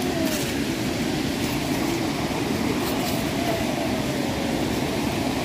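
Steady rushing of a mountain stream of meltwater flowing through a gorge.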